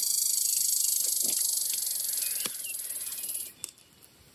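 Red squirrel's territorial rattle: a loud, high, rapid buzzing chatter that starts suddenly, runs about three and a half seconds and cuts off, part of a turf war over territory.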